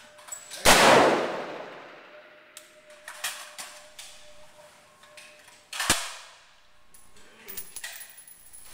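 Rifle shots on a covered firing range. Two loud shots about five seconds apart each ring out in a long echo, with fainter sharp cracks in between and near the end.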